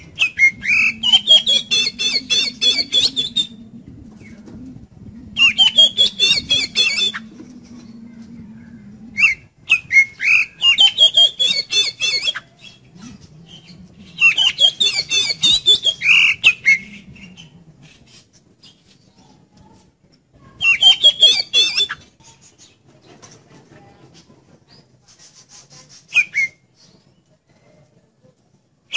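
Oriental magpie-robin (kacer) singing an energetic song in five bursts of rapid, high chattering notes, each one to three seconds long with pauses between, and a single short note near the end.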